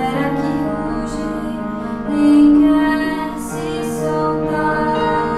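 A woman singing a slow melody over sustained electronic keyboard chords, holding one long note about two seconds in.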